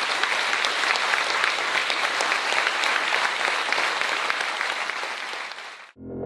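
Audience applauding: dense, even clapping that tails off slightly and is cut off about six seconds in, where a music jingle begins.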